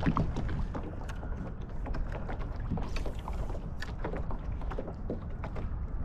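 Scattered small clicks and knocks of fishing gear being handled in a small boat, over a steady low rumble, with a brief hiss about three seconds in.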